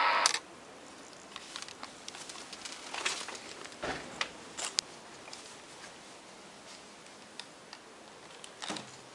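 Shortwave receiver audio: a loud buzzing signal near 10312 kHz cuts off about a quarter second in, leaving a faint hiss with scattered clicks and crackles.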